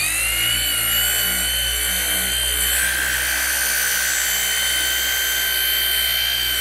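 Flex PXE 80 cordless mini polisher running steadily with a high whine, buffing correcting compound into the painted wing surface to cut off its coating.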